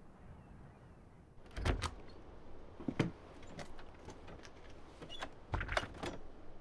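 A house door being handled: clicks and knocks of its latch and the door itself, in a cluster about a second and a half in, a sharp knock about a second later with lighter ticks, and another cluster near the end.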